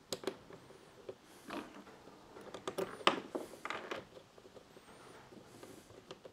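Scattered light clicks, taps and rustles of a kayak deck fitting being handled and put back in place, loudest about three seconds in.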